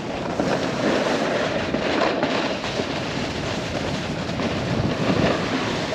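Snowboard sliding and carving over snow: a steady, rough scraping rush from the board's base and edges that never breaks, rising and falling a little in level.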